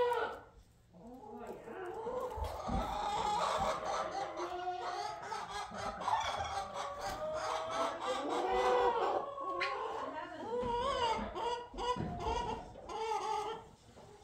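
A flock of chickens calling, many short calls overlapping one another, beginning about a second in and running on with little pause.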